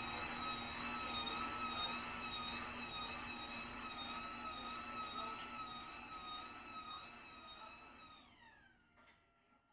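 Electric garage door opener running a door down with a steady high whine, which falls in pitch and fades as the motor stops near the end, followed by a few faint clicks.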